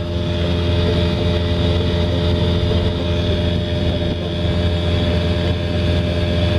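70 hp Evinrude outboard motor running at speed, holding one steady note without a stumble, over a rush of wind and water. The run is a test at high speed of whether the fuel pump is picking up gas after its centre screw was tightened.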